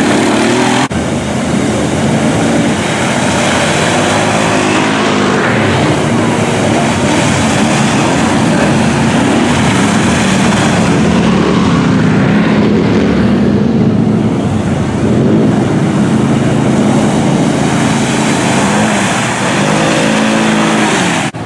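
ATV engines revving hard and steadily, rising and falling as the quads plough through a mud bog pit. Near the end a side-by-side UTV runs through.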